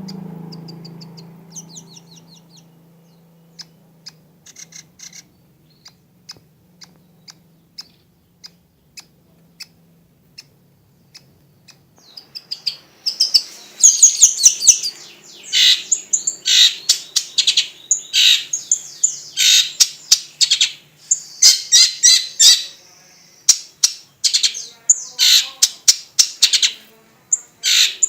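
Long-tailed shrike (cendet) singing a varied song: scattered soft chirps about once a second at first, then from about twelve seconds in a loud, fast run of chirps and calls.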